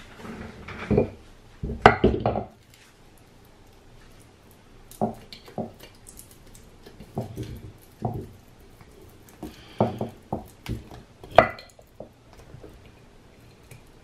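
Irregular metal clunks and clicks of a hoverboard hub motor's copper-wound stator being handled and fitted against the wheel's magnet rotor, with a cluster of louder knocks about two seconds in and another sharp knock near the end.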